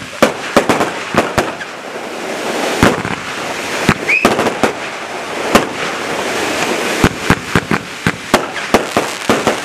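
Aerial fireworks shells bursting overhead, a series of sharp bangs: a quick run in the first second or so, scattered reports through the middle, and another rapid volley in the last few seconds.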